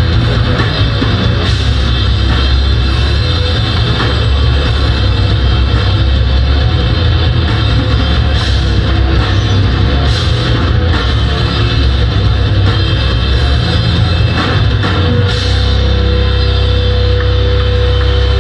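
Metalcore band playing live at full volume: heavy distorted guitars and bass over fast drumming with cymbals. About fifteen seconds in the drums stop and a held chord rings on.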